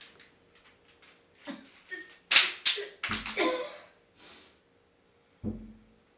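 Irregular scuffs, scrapes and small knocks from people moving in a bare stairwell. A loud rasping scrape comes about two and a half seconds in, followed by heavier dull thumps and a single thump near the end.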